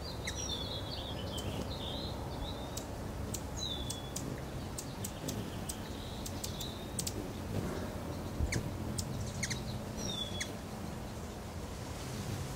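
Hummingbirds at a feeder giving many sharp, high chip notes, with short squeaky twitters near the start, at about four and seven seconds, and again near the end, over a steady low background rumble.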